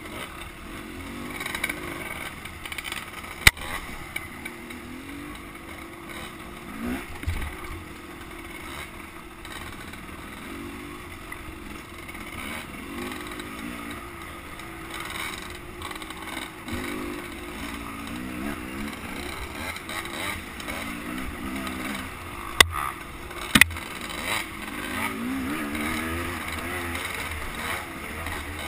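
Dirt bike engine on trail riding, its revs rising and falling again and again as the rider works the throttle over uneven single track. Sharp knocks are heard three times, once a few seconds in and twice close together past two-thirds of the way.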